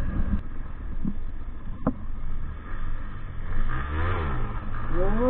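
Motorcycle engine running on the move over steady wind and road noise; about four seconds in, an engine's pitch rises and then falls.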